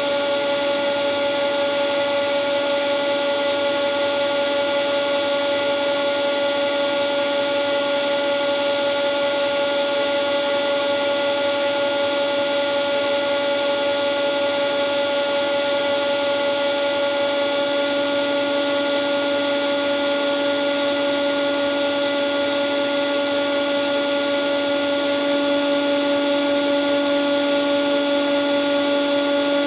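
Ventilation fan running steadily, with a constant hum and whine over an airy hiss. A lower hum tone joins about 18 seconds in and grows stronger a few seconds later.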